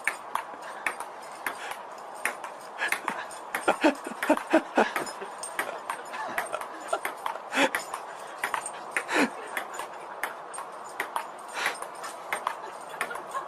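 A dog making short vocal sounds, a quick run of them about four seconds in and another about nine seconds in, amid frequent light clicks and taps.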